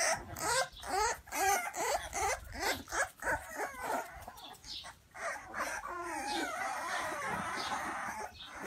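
A litter of American Bully puppies whimpering and squeaking: many short cries that rise and fall in pitch in quick succession, running together into a denser, overlapping chorus near the end.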